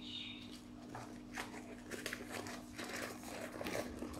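The waterproof fabric of a 15-litre dry bag rustling and crinkling in many small scattered crackles as its top is gripped and rolled down to seal it.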